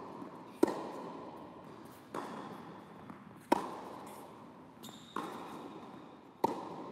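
Tennis rally on an indoor hard court: five racket strikes on the ball about one and a half seconds apart, the louder ones alternating with softer ones from the far end. Each hit rings on in the hall's echo.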